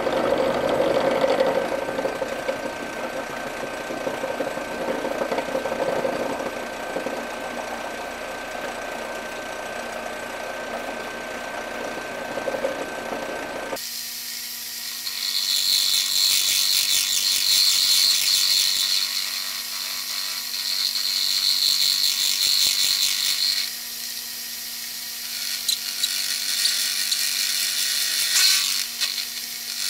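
A Delta Rockwell drill press running as a mill, its end mill cutting across the top of an aluminium AN fitting. About halfway the sound changes abruptly to a thinner, higher cut, with a high-pitched whine in two stretches of a few seconds each.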